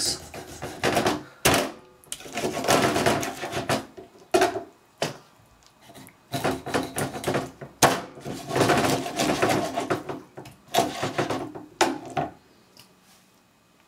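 A large kitchen knife sawing through a whole mullet to cut it into steaks, in four or five long rasping strokes, with a few sharp knocks of the blade on the plastic cutting board. The cutting stops about a second and a half before the end.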